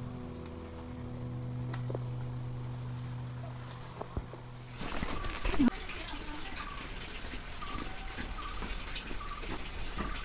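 Soft background music with low held notes, which stops about halfway through. Then outdoor sound: a steady insect chirring, a bird calling over and over about every second and a half, and light footsteps on a muddy path.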